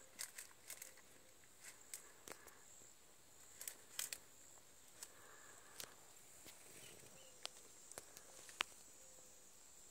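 Quiet outdoor ambience: a faint, steady, high-pitched insect drone, with scattered short crackles and snaps, loudest about four seconds in.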